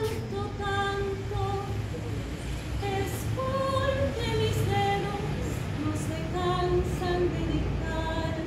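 Women's choir singing a cappella in several voice parts, with held notes that move in steps from one chord to the next.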